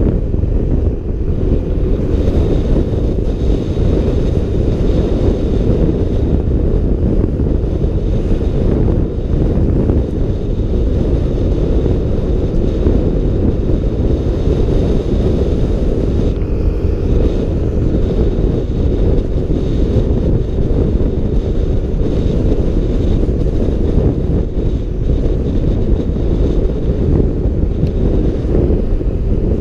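Steady low rush of wind buffeting a helmet-mounted microphone while riding a Yamaha NMAX scooter at road speed.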